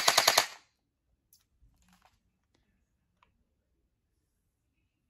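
Electric gel blaster firing a short rapid burst: about eight sharp mechanical clacks in just over half a second, followed by a few faint clicks.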